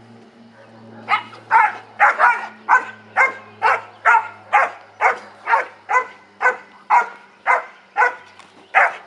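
Black German Shepherd puppy barking over and over at a bite sack being teased in front of her, the barks of a young working pup in prey drive. The barks start about a second in and come steadily, about two a second.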